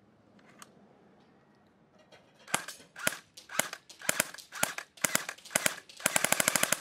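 ICS MP5 airsoft electric gun firing. After a click about half a second in, seven single shots come about two a second from two and a half seconds in, then a fast full-auto burst near the end.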